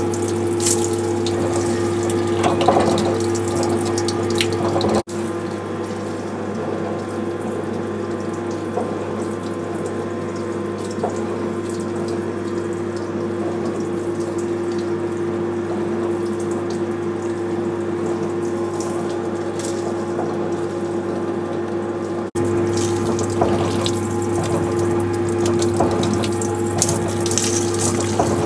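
Haas TL2 CNC lathe running a turning cycle: a steady machine hum with a constant hiss of flood coolant splashing over the work, and scattered crackling from the cutting. The sound drops out abruptly twice where the footage is cut.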